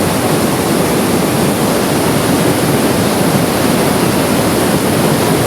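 Niagara Falls roaring at close range on the camera's microphone: a loud, steady, deafening rush of falling water.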